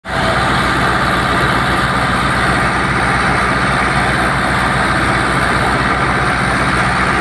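Fiat 640 tractor's four-cylinder diesel engine running steadily with an even low beat, under a dense, continuous whirring clatter of the wheat thresher it drives.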